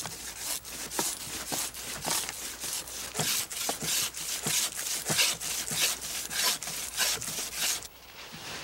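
Quick back-and-forth scraping strokes by hand, about three a second, that stop abruptly near the end.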